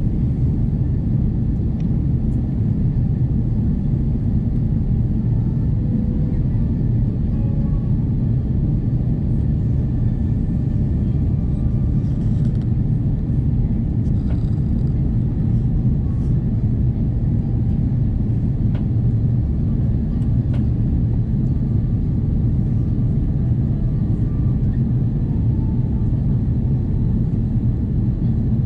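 Airbus A330 cabin noise: a steady, deep rumble of the engines and the airflow over the fuselage, unchanging throughout, with a few faint clicks from the cabin.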